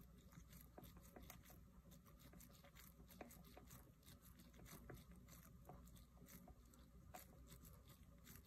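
Near silence: faint room tone with scattered soft ticks and taps.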